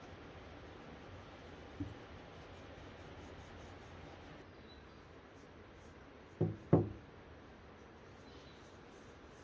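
A single faint knock, then about four and a half seconds later two louder dull knocks in quick succession, over quiet room tone.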